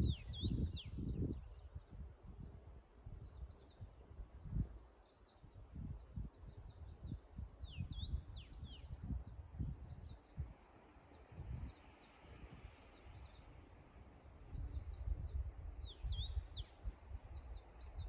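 Small songbirds chirping in short, high, sliding calls that come in clusters every few seconds, over gusts of wind rumbling on the microphone, strongest near the start and again near the end.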